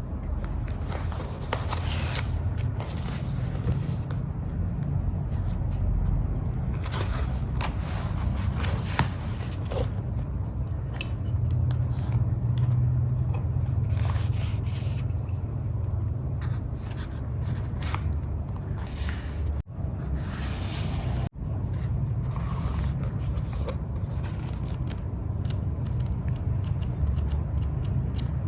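Paper and journaling materials being handled: irregular rustling, scraping and small crackles and clicks over a steady low hum, cutting out briefly twice near the middle.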